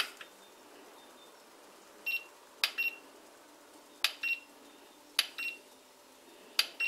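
Handheld infrared thermometer beeping with short high beeps and clicks as its trigger is pressed, about five times roughly every second or so starting about two seconds in, taking temperature readings of freshly boiled plastic parts.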